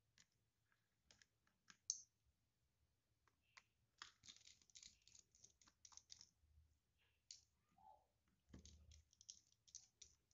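Faint, scattered small clicks and scratches of a small screwdriver and tiny screws being worked out of a smartphone's internal frame, coming more thickly from about four seconds in and again near the end.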